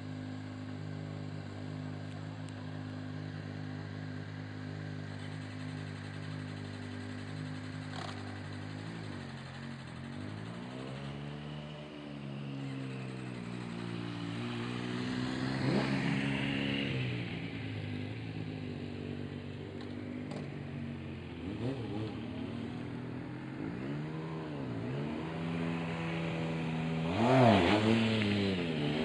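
Sport motorcycle engines idling steadily for the first several seconds, then revved again and again, the pitch rising and falling with each twist of the throttle. The loudest rev comes near the end.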